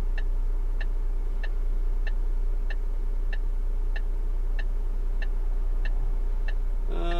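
Lorry's turn-signal indicator ticking evenly, a little under two ticks a second, over the steady low drone of the idling engine heard inside the cab.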